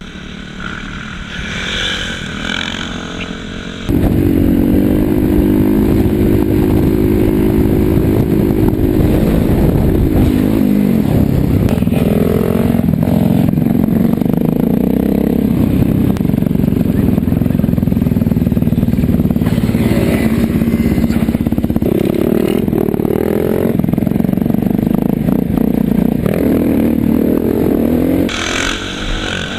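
Motorcycle engine running loudly and steadily, revving up and down several times. It comes in more quietly for the first few seconds, jumps sharply louder about four seconds in, and drops back shortly before the end.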